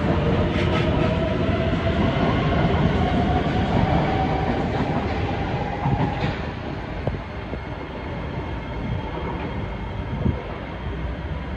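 SMRT C151C electric metro train accelerating away from the platform: its traction motors whine, rising steadily in pitch, over the rumble of the wheels on the rails. As it recedes it grows quieter, with a few sharp clacks from the wheels over the track.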